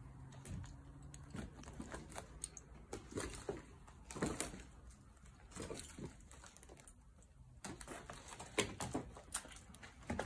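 Footsteps crunching and scuffing over a floor littered with paper, broken ceiling tiles and debris, in an irregular run of clicks and crackles.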